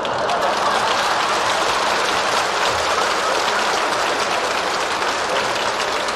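A large theatre audience applauding: a dense, steady clatter of many hands clapping.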